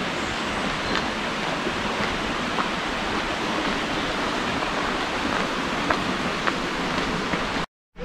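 Steady rush of flowing water from a burn (small stream), cutting off suddenly near the end.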